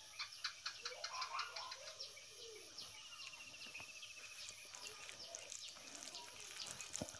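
Thick dal poured from a steel bowl onto rice, then the rice squished and mixed by hand, with faint wet sounds. High chirps and a short trill sound in the background.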